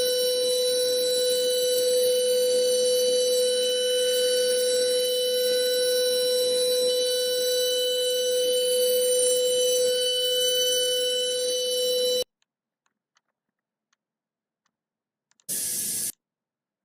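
A steady electronic buzzing drone made of several fixed pitches, the lowest and strongest a mid-pitched hum, that cuts off suddenly about twelve seconds in, followed by a short burst of the same kind of sound near the end.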